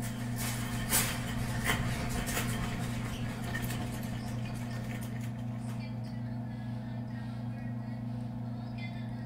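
Steady low electrical hum of a supermarket ambience soundtrack, with a few sharp crackles in the first couple of seconds.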